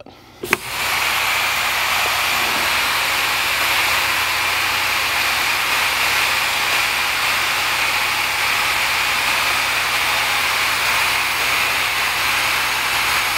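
A click, then compressed air hissing steadily out of a heavy truck's air brake system as the pressure bleeds down, after the red trailer air supply valve is pushed in; this is the tractor protection valve test, in which the valve must pop back out on its own as pressure falls.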